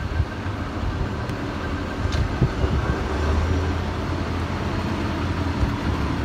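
Road traffic: a motor vehicle's engine running with a steady low hum, over the hiss of street noise.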